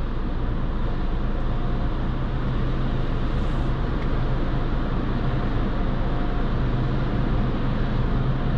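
Steady noise of an automatic car wash tunnel, with water spraying and wash equipment running under a constant low hum.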